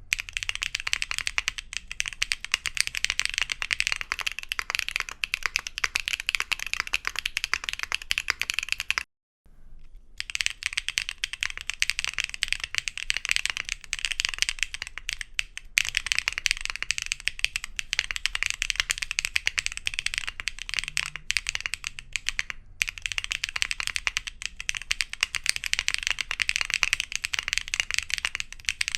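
Fast, continuous typing on a mechanical keyboard fitted with Wuque Studio BigLucky tactile switches (factory-lubed, polycarbonate housings), a dense stream of key clacks and bottom-outs. The sound cuts out briefly about nine seconds in, then typing resumes with the switches mounted in a polypropylene (PP) plate.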